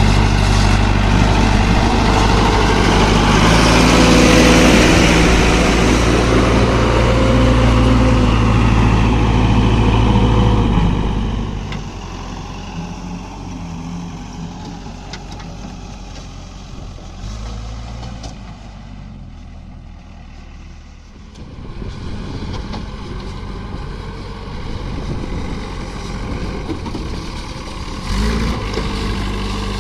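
Backhoe loader's diesel engine revving hard under load while digging and loading mud, its pitch stepping up and down. About eleven seconds in it drops back to a quieter, lower run, then picks up again near the end.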